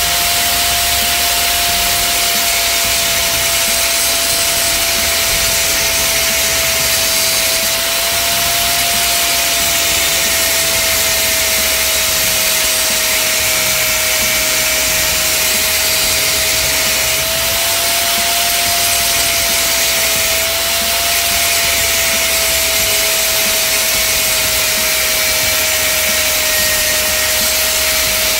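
Angle grinder with a thin cut-off disc running steadily while cutting into a metal gate frame: a steady high whine over a dense hissing grind, the pitch wavering slightly a few times as the disc bites into the metal.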